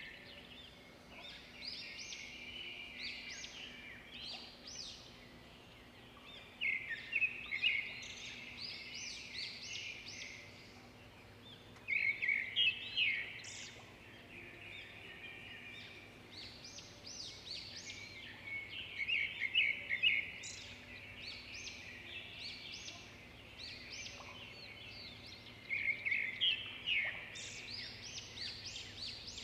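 Birds chirping in bursts of quick, high chirps and trills that come back every few seconds, over a faint steady hum.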